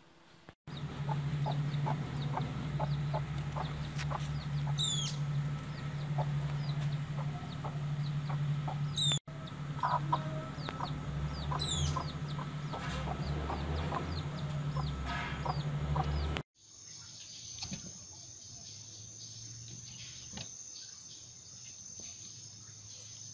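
A hen clucking, with her chick's high sliding peeps, over a steady low hum. About sixteen seconds in the sound cuts to a much quieter stretch with a faint steady high whine and soft ticks.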